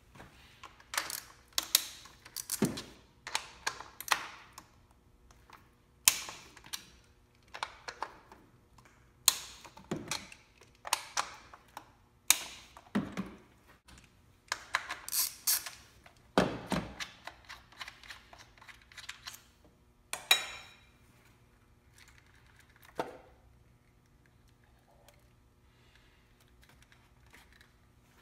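Socket wrench ratcheting in short runs of clicks, with metal clinks, as a 10 mm deep socket undoes the nuts holding the ignition coil packs. The clicking thins out about two-thirds of the way in, leaving a single click after that.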